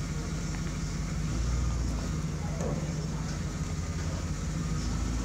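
Ford pickup's engine running at idle, a steady low drone that grows louder a little over a second in as the truck creeps forward.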